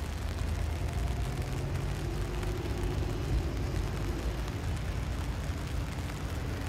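Low steady rumble, with the faint drone of a river-cruise boat's engine rising and fading over the first few seconds as the boat passes below.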